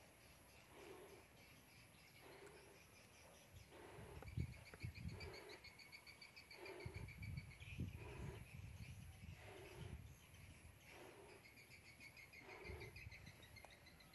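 Faint birdsong with high chirps and trills, and a low call repeated about once a second. Low rumbling puffs come through in the middle.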